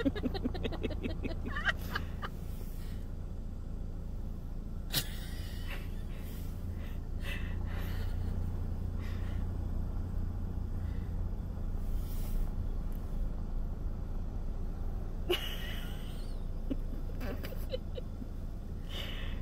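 Steady low rumble of an idling car engine, with a few short knocks and rustles scattered through it.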